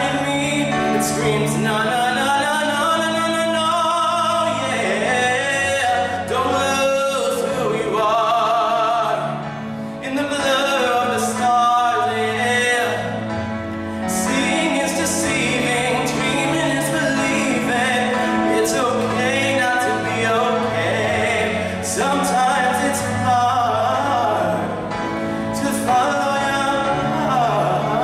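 A man singing a slow pop ballad into a microphone, his voice held and sliding through long phrases, over a recorded backing track of sustained low chords.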